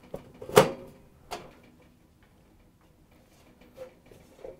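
Sheet-metal back panel of a gas range's control console knocking and clicking as it is pushed down and slid into place. A sharp knock comes about half a second in, a lighter one about a second later, and faint taps near the end.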